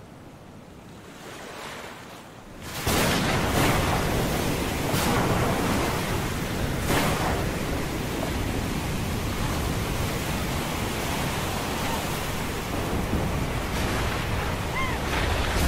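Storm at sea: waves crashing and wind, cutting in loud about three seconds in after a quieter stretch, with a few sharper wave splashes over the next few seconds.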